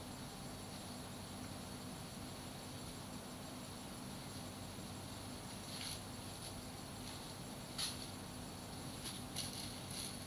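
Insects, likely crickets, trilling steadily and high-pitched over a faint low hum. From about six seconds in come a few short, sharp high chirps, the loudest near the eight-second mark.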